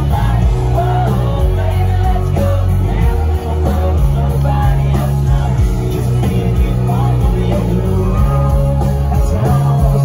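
Live country music from a concert stage: a full band with a male lead singer, loud and heavy in the bass, heard from within the crowd.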